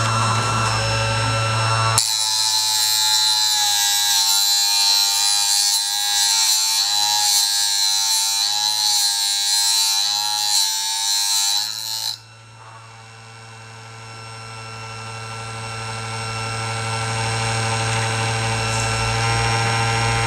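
Wipro PMF-04 multifunction sharpening machine running with a steady electric-motor hum. About two seconds in, a blade is set against the wheel and ground with a loud, high hiss and a wavering whine, which stops suddenly near the middle. After that the motor hum grows gradually louder.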